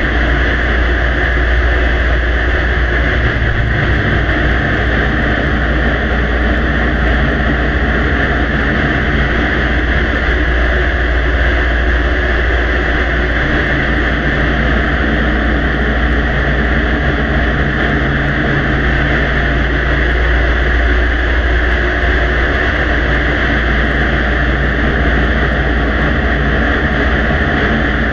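Steady, loud background noise of a heavily amplified recording: an even hiss with a low rumble and hum underneath, unchanging throughout.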